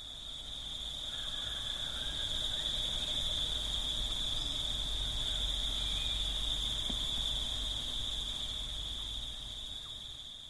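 A steady chorus of insects, one continuous high-pitched trill over a low rumble. It fades up over the first couple of seconds and fades down near the end.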